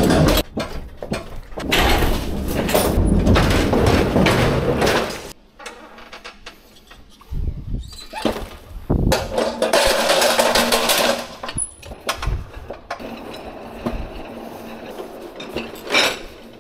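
A manual pallet jack being pulled with a loaded pallet, its wheels rumbling over the floor and the load rattling. The rolling is loud for the first five seconds and again briefly around the middle, with single knocks and clanks in the quieter stretches and a sharp click near the end.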